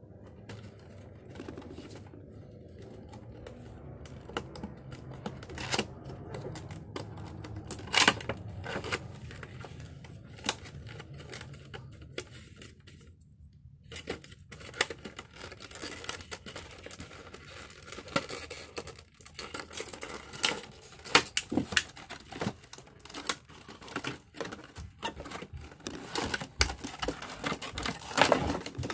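Cardboard box and clear plastic packaging being handled and opened by hand: scattered crinkling, tearing and tapping clicks of card and plastic, with a short pause about halfway through.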